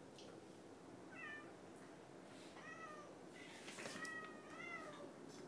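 A domestic cat meowing faintly: four short meows, each rising then falling in pitch, spaced about a second apart, with a brief rustle just before the third.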